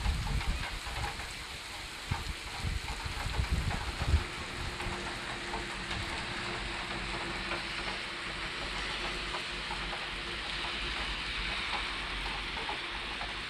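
Steady heavy rain hissing down on wet pavement and puddles during a thunderstorm, with a few low rumbles in the first four seconds.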